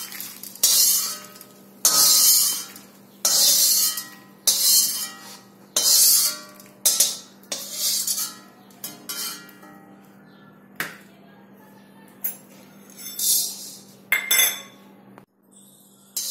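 Slotted steel spatula scraping and clinking against a metal kadhai as roasted coriander seeds are scooped out, about one scrape a second at first, then fewer and further apart. Near the end comes a short rattle as black peppercorns go into the pan.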